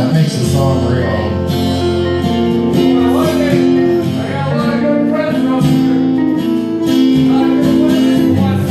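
Live acoustic-electric guitar strumming chords together with an electric guitar holding sustained notes, in a steady instrumental passage.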